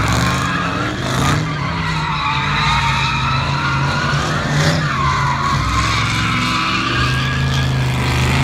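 A Dodge car's engine held at high revs while its tyres squeal continuously through a sustained drift, the squeal wavering in pitch and briefly changing about halfway through.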